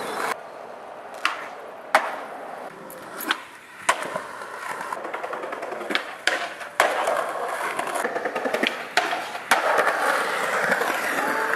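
Skateboard wheels rolling on pavement, broken by several sharp cracks of the board popping and landing.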